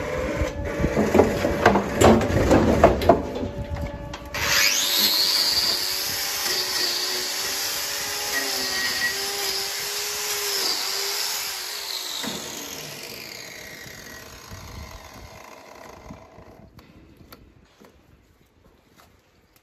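Handheld angle grinder trimming a cow's hoof: after a few seconds of clattering knocks, the grinder starts suddenly with a high whine as it cuts into the hoof horn, runs for about eight seconds, then spins down and fades.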